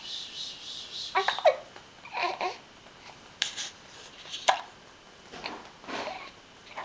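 A baby making short, scattered fussing and babbling sounds while being burped, about six brief sounds with pauses between, a couple of them sharper and noisier.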